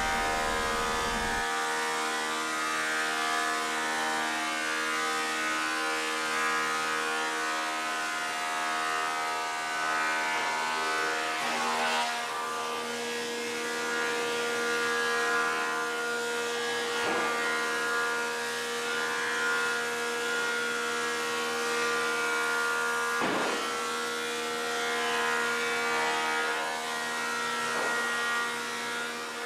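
Wood planer running steadily with a constant whine, with a few faint knocks along the way.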